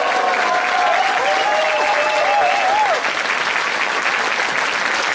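Audience applauding, with drawn-out gliding cheers over it for the first three seconds.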